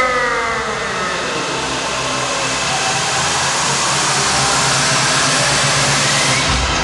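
Stage CO2 jets blasting plumes of white vapour with a loud, steady hiss, and a falling whine in the first second. Deep bass comes in near the end.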